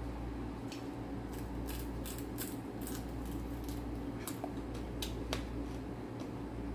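Close-miked chewing of food: irregular sharp clicks and crunches over a steady low hum.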